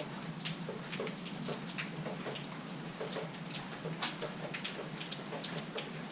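Rain falling, with large individual drops ticking irregularly on a nearby hard surface, several a second, over a steady hiss.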